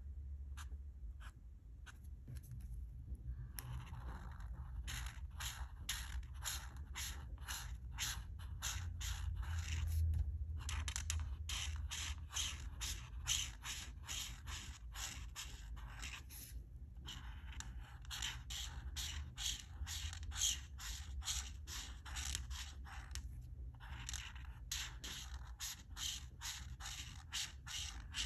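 Art marker tip scraping across paper in quick back-and-forth colouring strokes, about three a second, in runs of several seconds with short pauses. The first few seconds hold only a few light, scattered strokes.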